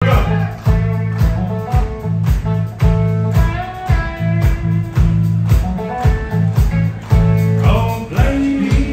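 Live country band playing with electric guitars, bass guitar and drum kit: heavy bass notes under guitar lines, with a steady drum beat of about two hits a second.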